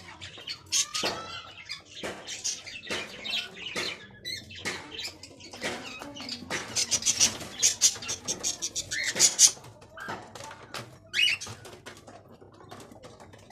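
Pet cockatiels in a cage: a dense run of sharp clicks and rustling, with a few short chirps.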